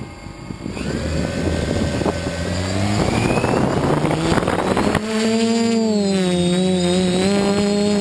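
DJI F450 quadcopter's electric motors and propellers spinning up, the pitch rising. About five seconds in it settles into a steady pitched drone that dips and recovers in pitch.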